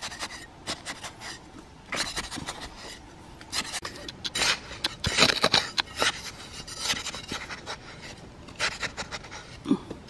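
Metal hoe blade chopping into and scraping through loose, sandy soil in irregular crunching strokes, some louder than others.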